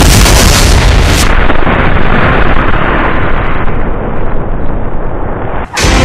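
Sound effect of a huge explosion: a sudden blast, then a long rumble that turns muffled after about a second and cuts off abruptly near the end.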